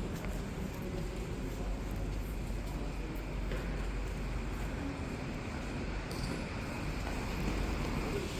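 City street ambience: a steady rumble and hiss of traffic, with the faint voices of passers-by.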